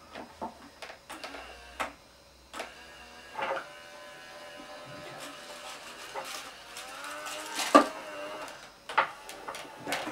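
Plastic toy garbage truck being handled, with clicks and knocks of plastic parts. The sharpest knock comes a little before the end. A wavering pitched hum runs through the second half.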